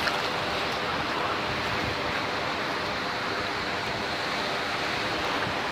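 Ocean surf rushing steadily, an even, unbroken wash of breaking waves.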